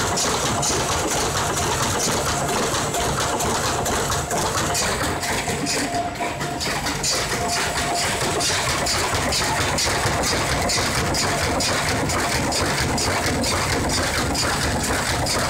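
1450 automatic folder gluer running at production speed, feeding cardboard lock-bottom box blanks along its belts: a steady mechanical clatter with a fast, regular clicking and a constant hum.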